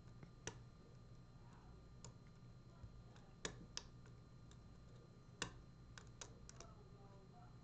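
Scattered faint metallic clicks of a lock pick working the pin stack inside a Gege pExtra lock cylinder, about half a dozen sharp ticks spread over several seconds, with a faint steady hum underneath.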